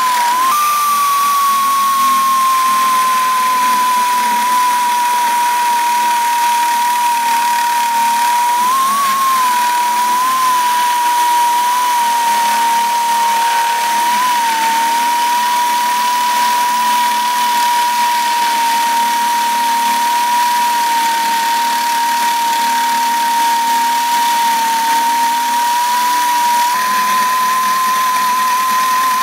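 Straight grinder spinning an A-0004 Little Papa grinding file against the edge of a stainless steel plate: a loud, steady whine over a grinding hiss, wavering briefly in pitch a few times.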